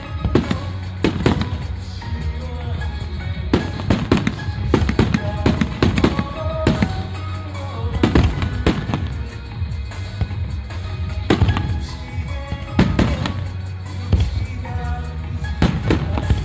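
Aerial firework shells bursting over water: a run of sharp bangs at irregular intervals, several coming close together in clusters.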